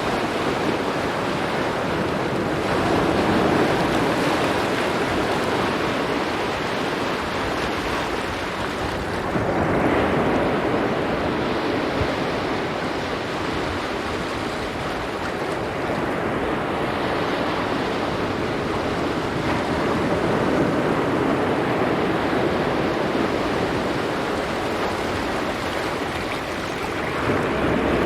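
Waves washing on a rocky beach: steady surf that swells louder every several seconds as waves come in and break.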